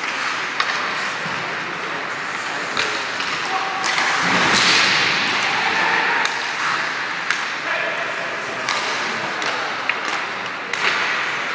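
Ice hockey play in an indoor rink: sharp clacks of sticks on the puck and the puck knocking against the boards, over the scrape of skates on ice, echoing in the arena. A longer scraping hiss swells about four seconds in.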